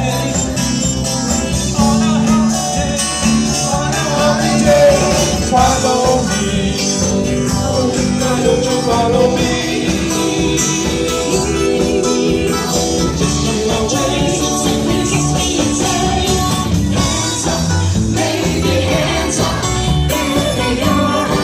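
Band music: an upbeat song with a singing voice over a steady beat.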